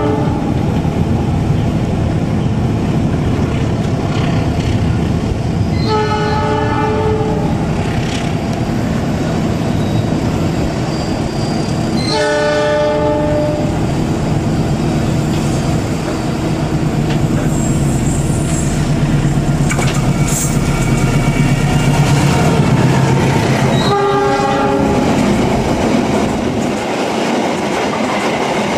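Diesel-electric locomotive hauling a passenger train up a mountain grade: the engine rumbles steadily under load with wheels clacking over the rails. Its air horn sounds three times, blasts of about a second and a half each, roughly six, twelve and twenty-four seconds in.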